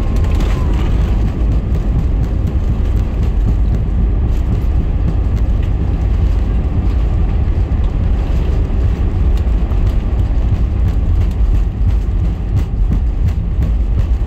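Steady, loud rumble inside the cabin of a British Airways Airbus A320 as it rolls out along the runway after touchdown, engine and wheel noise together, with faint ticks here and there.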